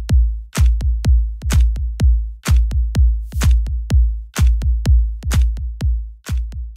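Electronic dance music with a heavy drum-machine kick, about two beats a second, and crisp hi-hat and snare strokes between the beats.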